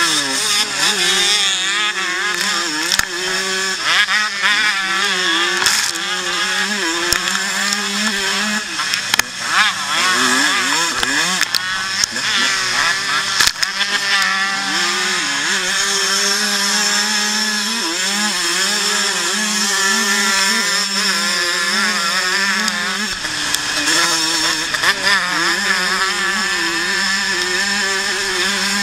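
A vintage motocross bike's engine racing, heard from on board: its pitch rises and falls constantly as the throttle opens and closes, with a short drop in revs about 23 seconds in.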